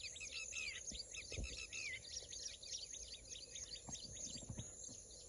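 A dense chorus of small birds chirping: many short, high chirps a second, overlapping without a break.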